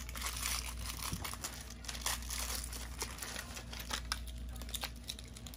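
Thin plastic toy packaging crinkling and rustling as hands dig through and open the small wrapped packets of an LOL Surprise doll, a steady run of crackly ticks.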